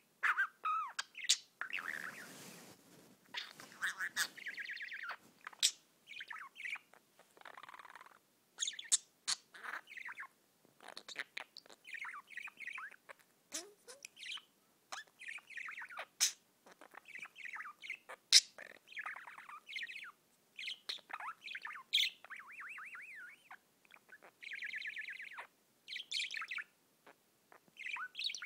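Budgerigar warbling: a long, unbroken run of chirps, sharp clicks and quick chattering trills, with a short raspy noise about two seconds in.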